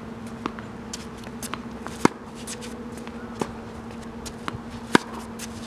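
Tennis ball being hit back and forth in a rally. Two loud racquet strikes, about two and five seconds in, with fainter strikes from the far end of the court in between, over a steady low hum.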